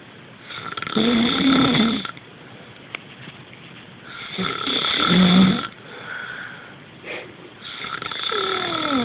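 A sleeping person snoring: three long snores about three and a half seconds apart, the last one falling in pitch as it ends.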